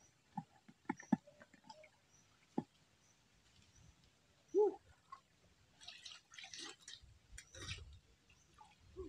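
Pond water dripping and splashing as water-lily stems are pulled up by hand while wading: a few small drips and clicks, then a stretch of splashing and rustling about six to eight seconds in. A single short low call or grunt sounds about four and a half seconds in.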